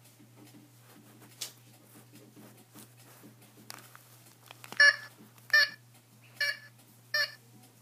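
Sound chip in a squeezed plush ivory-billed woodpecker playing its recorded call through a tiny speaker: four short, evenly spaced tooting notes in the second half. Soft rustling of handling before them.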